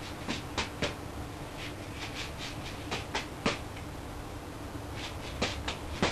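Juggling balls slapping into the hands as they are caught: short runs of quick catches in the three-ball 441 pattern, with a brief pause about four seconds in.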